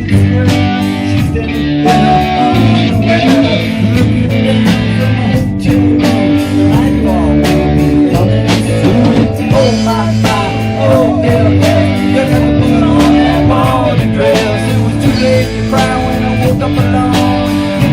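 Live band playing blues-rock: electric guitar over bass and a steady drum beat.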